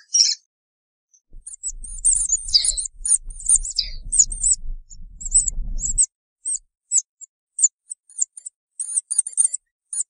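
Meerkat giving short, very high-pitched chirping calls in quick runs, several a second, starting about a second and a half in. A low rumble sits under the calls until about six seconds in.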